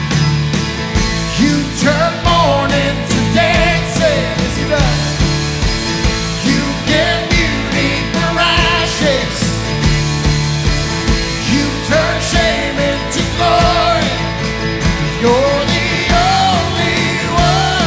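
Live worship band playing a rock-style song: a man singing lead over acoustic guitar, electric guitar, keyboard and an electronic drum kit keeping a steady beat.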